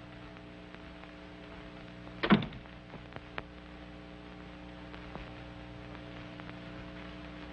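Steady hum and faint clicks of an old film soundtrack, with a door shutting once about two seconds in. No voice comes through.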